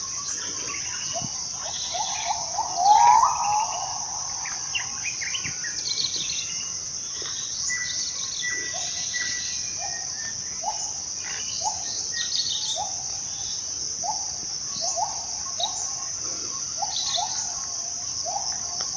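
Borneo rainforest ambience: a steady high drone of insects, with birds chirping and calling over it. The loudest call comes about three seconds in, and in the second half a short low call repeats about once a second.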